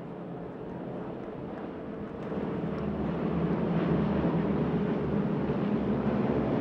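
A formation of North American Harvard (T-6) trainers approaching, the roar of their 600 hp Pratt & Whitney radial engines and Hamilton Standard propellers building steadily in loudness as they close in.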